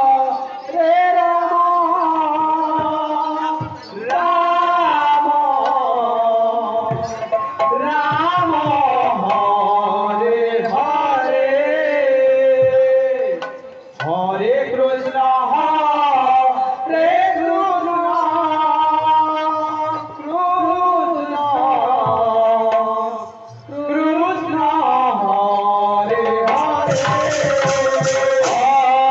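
Sambalpuri kirtan music: a man sings a devotional song in long phrases over barrel-drum accompaniment, with brief breaks between phrases.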